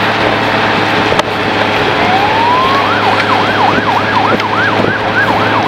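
A siren winds up in pitch about two seconds in, then switches to a fast rising-and-falling yelp, about three cycles a second. Under it runs the steady road and wind noise of the moving camera vehicle.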